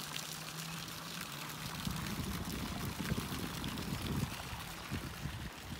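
Water from a spout pouring and splashing steadily into a swimming pool, with low wind rumble on the microphone from about two seconds in.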